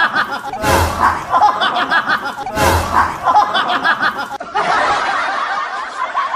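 Laughter, looped so that the same stretch repeats about every two seconds, each repeat opening with a sharp thump. About four and a half seconds in it changes to a different, steadier stretch of laughter.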